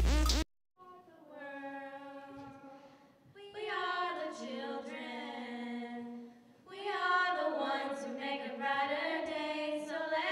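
Loud dance music cuts off abruptly in the first half-second. After a short pause, three young women sing a cappella in harmony into handheld microphones, in long sustained phrases with brief breaks between them.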